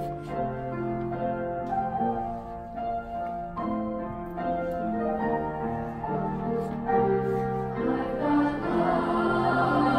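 A middle-school choir singing with grand piano accompaniment, the piano's notes clear throughout. The music swells louder over the last few seconds.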